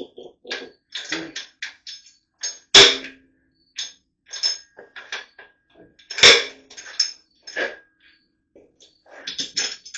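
Hand tools and metal engine parts clinking and knocking during teardown of a small-block Chevy 350, with two loud sharp metal knocks about three and six seconds in.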